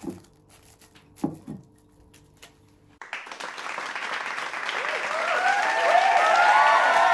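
A crowd cheering and applauding, fading in about halfway through and growing loud, with many voices calling out over the clapping. Before it, a few soft crinkles of plastic cling wrap being pressed down over a glass bowl.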